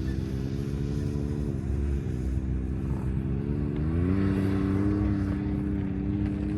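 Motor vehicle engine running steadily, rising in pitch about four seconds in and then holding, with heavy low rumble underneath.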